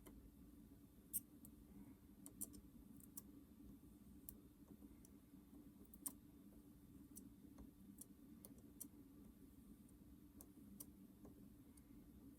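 Faint, irregular light clicks of small tools being handled on a workbench during electronics soldering work, over a low steady hum.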